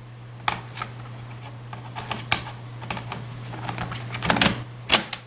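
Laptop main battery being handled and pushed into its bay: light plastic clicks and taps, with two louder knocks near the end as it seats. A steady low hum runs underneath.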